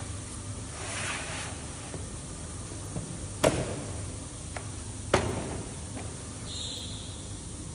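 Two sharp knocks about a second and a half apart, with a few fainter ticks, over a steady background hiss. A soft swish comes about a second in, and a brief high tone sounds near the end.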